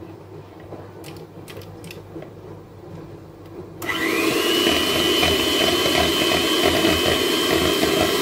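Electric hand mixer switched on about four seconds in: its motor whine rises quickly, then holds steady as the beaters whisk eggs in the mixing bowl. Before it starts, a few faint clicks.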